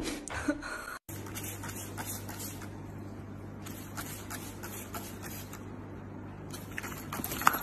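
A hand-held plastic trigger spray bottle squirting a few short, faint sprays over a steady low hum.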